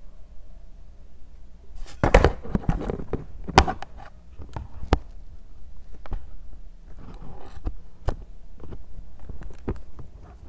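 Hands handling a small plastic charger adapter, its connector and a coiled cable: scattered sharp plastic clicks and taps with short spells of rustling, the loudest clicks about two seconds in.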